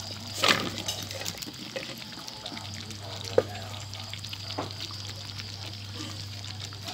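Pumpkin chunks tipped from a metal pot into a wok of curry, landing with a wet splash and tumble about half a second in. A few light metallic knocks against the wok follow, the sharpest about three seconds in, over a steady low hum.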